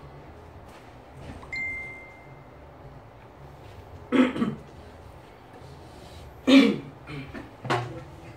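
Short, sharp vocal bursts from people, like coughs or held-back laughs: a loud one about four seconds in, another about six and a half seconds in, and a smaller one near the end. A brief high steady tone sounds about a second and a half in.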